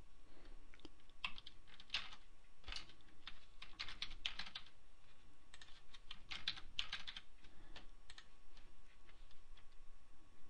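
Typing on a computer keyboard: irregular key clicks in short clusters, thinning out near the end.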